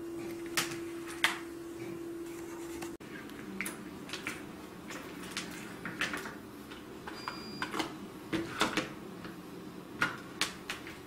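Light clicks and taps of cables and small electronic parts being picked up, moved and set down on a wooden table during a search for a power plug. A faint steady hum runs under the first three seconds and cuts off suddenly.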